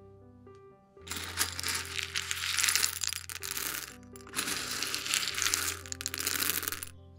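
Background music of soft held notes, twice overlaid by a loud crackling, rustling noise lasting about two and a half seconds each time.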